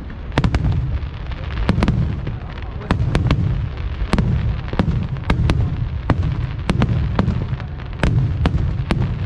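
Fireworks display going off: a rapid, irregular series of sharp bangs, about two a second, over a continuous low rumble of booms and echoes.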